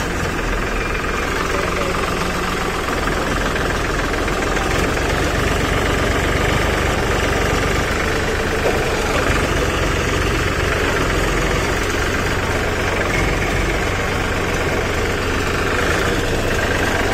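Diesel tractor engines running steadily under load as an HMT tractor tows a stuck Farmtrac 45 free with a strap.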